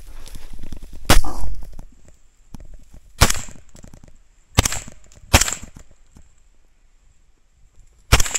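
Rifle shots: five sharp reports at uneven intervals, two of them less than a second apart in the middle. The first is the loudest.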